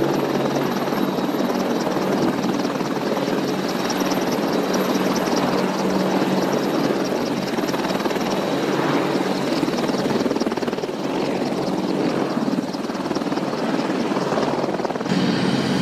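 Eurocopter Tiger attack helicopter ground-running on its wheels, its twin turboshaft engines giving a steady high whine under the rapid, even beat of the spinning main rotor.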